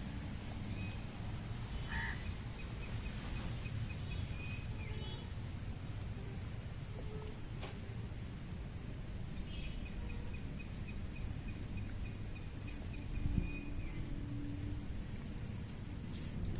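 Outdoor ambience: an insect, likely a cricket, chirping at a steady rate of about two high-pitched chirps a second over a low background rumble.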